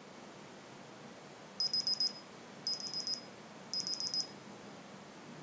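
Digital clinical stick thermometer beeping: three short bursts of rapid high beeps, about a second apart, signalling a finished reading.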